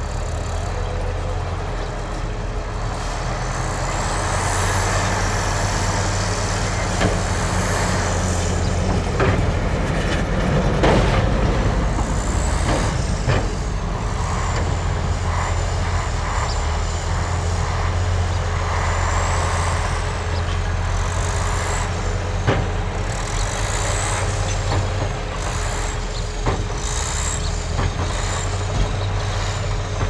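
Diesel engines of Hyundai dump trucks running steadily while they tip loads of dirt from raised beds. Scattered knocks and clanks are heard, along with thin high squeaks that glide up and down.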